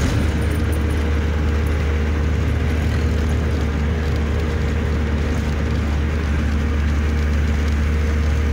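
Hino truck's diesel engine running steadily while driving, heard from inside the cab as a constant low drone with road noise.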